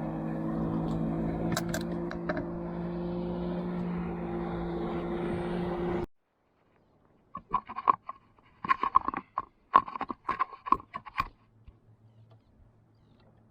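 Small boat's outboard motor running steadily, cut off abruptly about six seconds in. Then a few seconds of sharp, rapid clicking and rattling.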